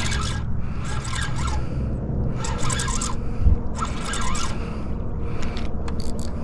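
Spinning reel cranked in short raspy spurts, about once every second or so, as a spoon lure is jigged and retrieved. A steady low rumble runs underneath.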